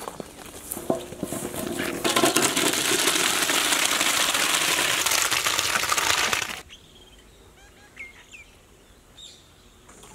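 Water from a large pot of boiled elbow pasta being poured off, a loud, steady rushing splash that lasts about four seconds and cuts off suddenly. Afterwards there is a quiet outdoor background with a few bird chirps.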